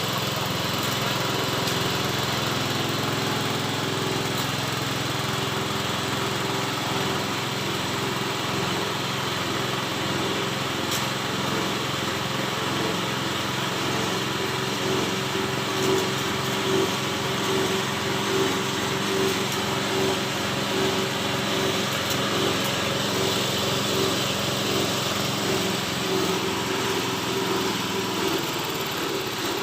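Small engine of a forage chopper (chaff cutter) running steadily, with a regular pulsing in its sound that sets in about seven seconds in.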